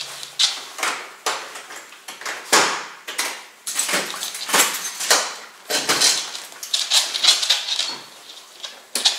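Irregular rustling with light clinks and knocks, many short sharp noises a second or so apart, as a person handles the dogs' leashes and moves about by the front door.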